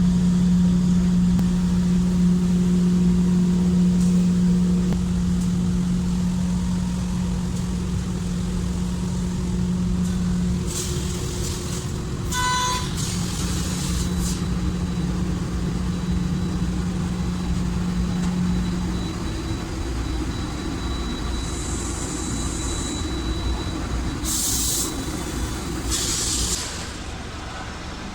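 CNC laser cutting machine running with a steady low hum, which fades about ten seconds in and stops a little before twenty. Short bursts of air hiss come about eleven seconds in and again near the end, and a brief beep sounds about twelve seconds in.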